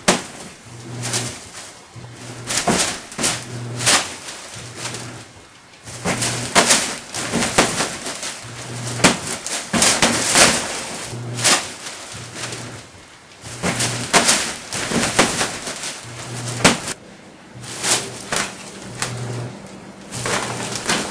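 Rustling and scratching of a fabric pop-up play tent as a cat inside claws and bats at it: quick scrapes in clusters, some sharp and loud. Under them a low hum pulses on and off about once a second.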